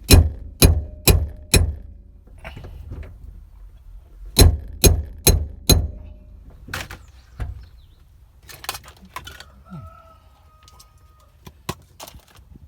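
Sharp knocks in two runs of four, about two a second, followed by a few scattered weaker knocks. A faint held tone sounds for about two seconds near the end.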